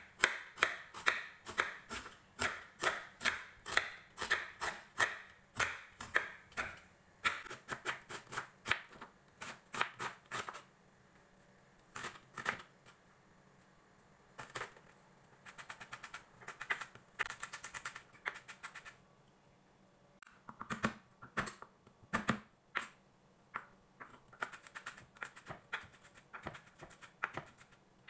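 Chef's knife chopping a red onion, then garlic cloves, on a bamboo cutting board: sharp knocks of the blade on the wood, about two a second at first, then quicker runs of rapid chopping broken by short pauses.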